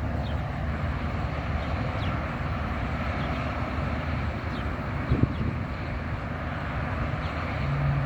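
Steady rumble and hiss of distant road traffic, with a few faint high chirps, a short knock about five seconds in, and a low steady hum joining near the end.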